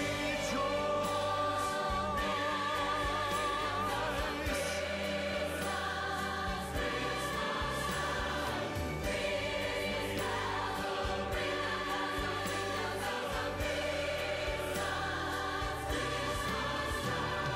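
A choir singing a Christmas song with instrumental accompaniment, holding long notes with a wavering vibrato over a steady bass.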